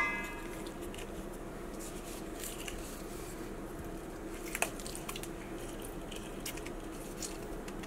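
A half lime being squeezed in a hand-held citrus press over a stainless steel bowl: faint squishing with small clicks, one a little louder about four and a half seconds in. The tail of a metal clink rings out right at the start, over a steady low hum.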